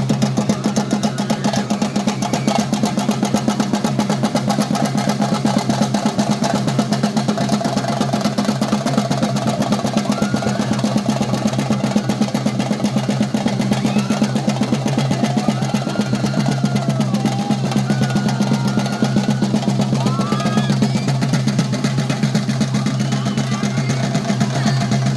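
Theyyam chenda drums beaten in a fast, continuous roll, with short higher calls rising and falling over it in the middle.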